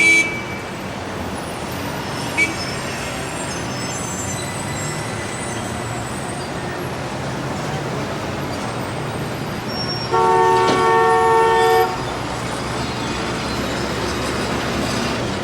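Steady city street traffic din, with a short horn toot about two seconds in and a vehicle horn held for about two seconds, the loudest sound, a little after halfway.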